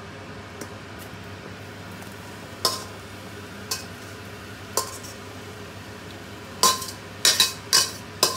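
Spatula scraping and clinking against a stainless steel wok as stir-fried cabbage is pushed out into a bowl. There are a few separate clinks, then a quicker run of scrapes and knocks near the end, over a steady low hum.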